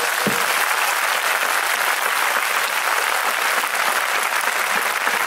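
Audience clapping and applauding steadily, a dense patter of many hands.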